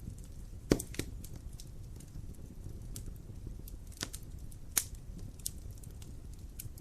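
Wood fire burning in a fireplace: a low steady rumble of flames with irregular sharp crackles and pops, the loudest pop less than a second in.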